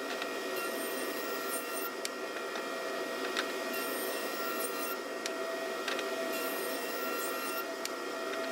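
Jointer running steadily while the edge of a rough walnut board is fed across its cutterhead knives, being squared to the fence. There are a few light ticks along the way.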